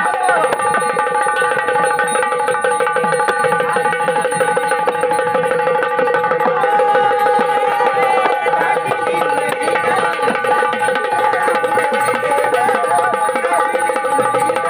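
Instrumental passage of Marathi gondhal folk music: steady held drone notes with a melody line moving over them, fast drumming and a plucked string.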